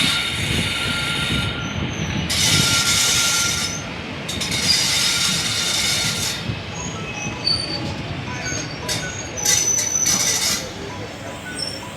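Indian Railways ICF passenger coach running on the track: a steady low rumble, broken by four spells of loud, high-pitched screeching of a second or two each, typical of wheel flanges squealing against the rails. The last spell ends a second or so before the end.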